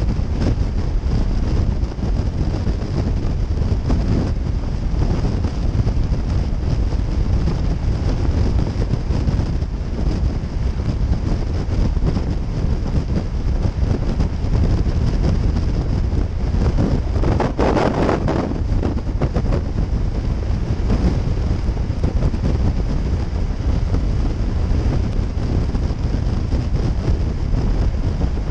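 Steady wind rushing over the camera microphone on a motorcycle at highway speed, with road and engine noise underneath. About two-thirds of the way through, an oncoming vehicle rushes past in a brief, louder whoosh lasting about a second and a half.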